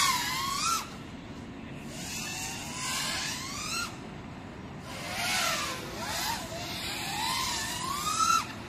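Small FPV quadcopter's motors whining, the pitch rising and falling in bursts as the throttle is pushed and eased. The whine is loudest near the start and again just before the end, where it cuts off sharply.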